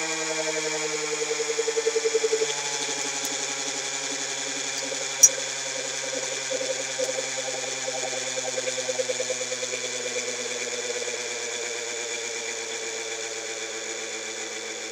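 Air-core motor generator whining as it spins down, its stack of tones sliding slowly lower in pitch with a pulsing beat. A sharp click about five seconds in.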